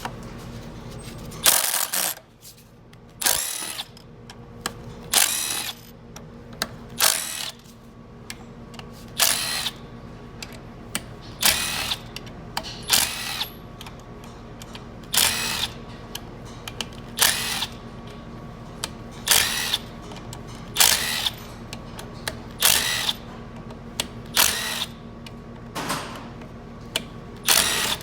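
A small cordless power tool run in short bursts, one after another about every second or two, spinning out the T40 bolts that hold a transmission's valve body.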